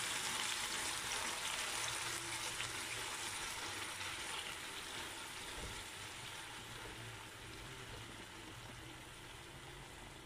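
Canned sardines in tomato sauce sizzling and bubbling in hot oil in a frying pan, with onion and garlic. It is a steady hiss that slowly dies down as the pan settles.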